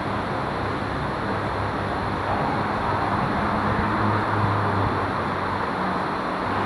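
Steady road traffic noise with a faint low hum, growing a little louder about four seconds in and easing off again.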